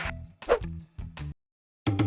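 Background music with a repeating low bass line and a sharp click about half a second in; it cuts out to dead silence for about half a second near the end.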